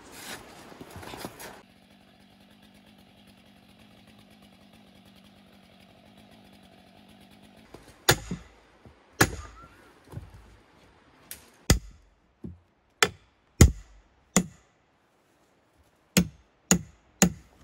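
About a dozen sharp, loud axe and hammer blows on a red cedar canoe log, chopping and splitting out its interior, irregularly spaced and starting about halfway through. Before them, a low steady hum.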